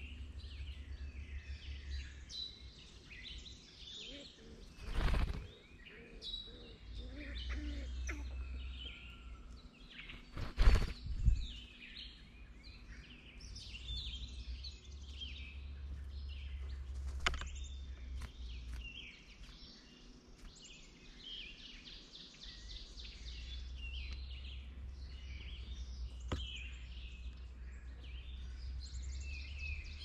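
Many small woodland birds chirping and calling over a low rumble. Loud thumps about five seconds in and again around eleven seconds, with a couple of sharp clicks later.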